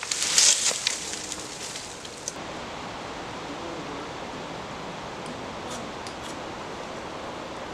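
A dead tree being dragged through dry leaf litter, its branches scraping and rustling loudly for about two seconds. Then a steady, even hiss with a few faint scratches near the end.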